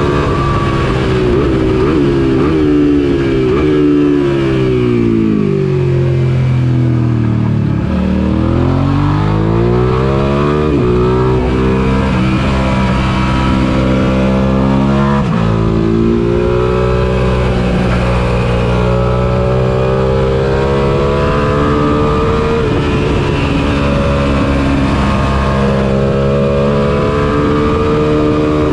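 Suzuki SV650's 645 cc V-twin engine heard onboard at race pace: the revs fall in steps as it brakes and downshifts, bottom out about eight seconds in, then climb hard with upshifts around eleven and fifteen seconds and hold high revs down the straight.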